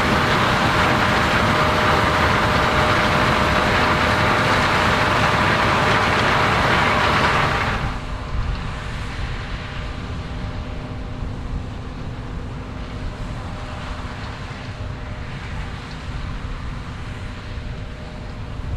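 Large harvest machinery running: a loud, steady noise with a constant hum. About eight seconds in it drops abruptly to a quieter, steady engine hum.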